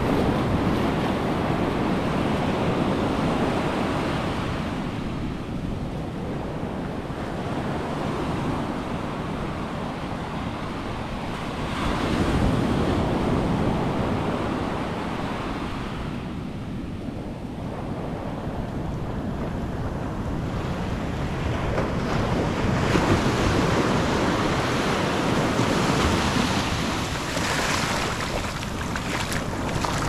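Ocean surf breaking and washing up over wet sand at the water's edge, a steady rush of water that swells and ebbs in slow surges as each wave comes in and draws back.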